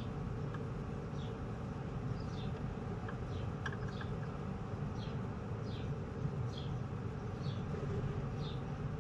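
Outdoor ambience: short, high, falling chirps repeat about once a second over a steady low rumble.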